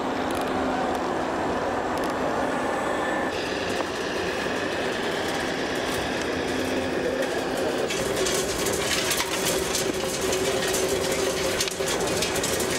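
Small electric motors and gearboxes of radio-controlled model construction machines and a model tractor whirring as they drive and work, with a dense patter of small clicks in the last few seconds as the model excavator digs.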